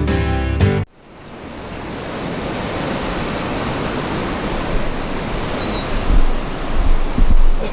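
A strummed acoustic guitar music cue cuts off just under a second in. It gives way to a steady outdoor rushing noise that fades up, with a few low wind buffets on the microphone near the end.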